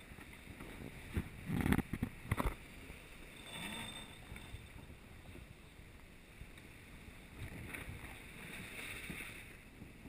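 Wind and sea rushing past a sailing yacht's hull underway, a steady noise, with a cluster of loud knocks in the first few seconds.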